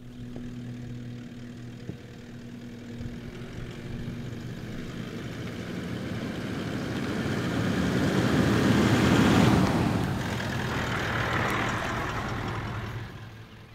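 A motor vehicle's engine running with a steady low hum, joined by a rushing noise that builds to its loudest about nine seconds in and then dies away, as of a vehicle driving by.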